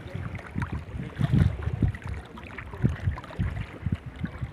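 Shallow seawater sloshing and splashing around legs wading through it, in irregular surges, with wind buffeting the microphone.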